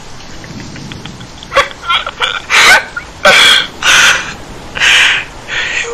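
A man's harsh, raspy vocal bursts without words, about eight ragged gasps in an uneven run starting about one and a half seconds in, after a low murmur.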